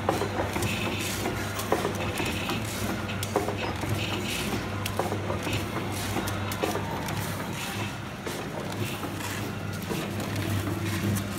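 Automatic vertical form-fill-seal sachet packing machine running: a steady motor hum with a regular clack a little more than once a second, one per cycle as it forms, fills, seals and cuts a three-side-sealed sugar sachet.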